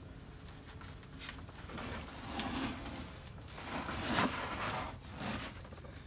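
Clothing and a backpack scraping and rustling against rock as a hiker squeezes through a narrow boulder gap, with a few irregular knocks and scuffs.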